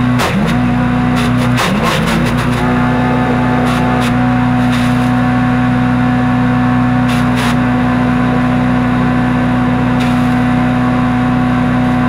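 Harbor Freight Predator wood chipper's single-cylinder gas engine running steadily at full throttle. It bogs down briefly twice in the first two seconds as branches are fed in, with cracking from wood being chipped. A few more chipping cracks come later while the engine holds speed.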